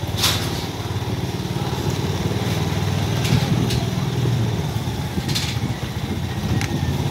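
Small motorbike engine running slowly and steadily, a low even hum, with a few short clicks over it.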